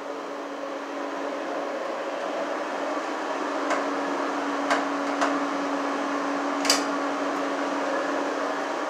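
A steady mechanical hum, with four sharp clicks in the middle few seconds from hand tools and metal at a ceiling electrical box, the last click the loudest.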